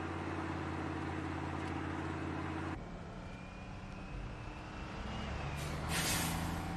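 Steady engine drone heard inside a moving vehicle's cab. It switches abruptly at about three seconds to the lower drone of a semi-truck's diesel engine, and near the end there is a short, loud air-brake hiss as the truck ahead slows.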